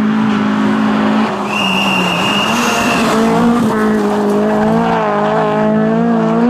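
Rally car engine running at high revs, held fairly steady and then wavering up and down as the throttle works, with a high squeal lasting about a second and a half near the middle.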